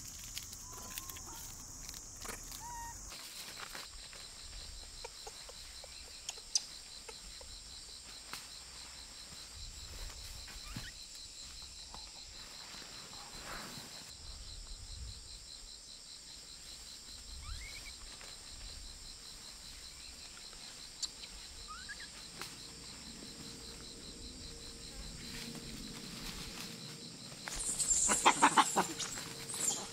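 Forest ambience: insects buzzing steadily with a fine, even ticking, and scattered short rising bird calls. Near the end comes a loud animal call about two seconds long.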